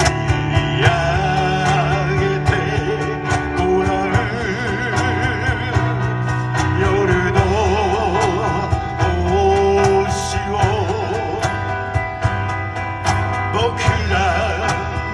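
Live band music: a voice singing with wide vibrato over guitar and a steady bass line, with percussive strokes throughout.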